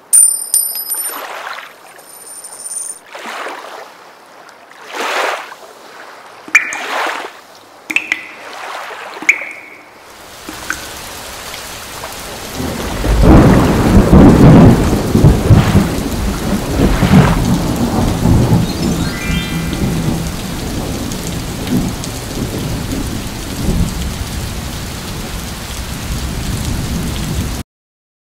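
Thunderstorm sound effect: steady heavy rain with a loud rumble of thunder a few seconds after the rain sets in. It is preceded by a string of short whooshing sweeps with brief tones, and it cuts off suddenly near the end.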